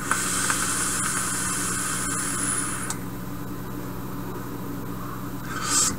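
A vaper draws for about three seconds through a Medusa atomizer with a 0.18-ohm coil, on a Boxer V2 mod firing at 90 watts in power mode: a steady airy hiss. A short breath follows near the end.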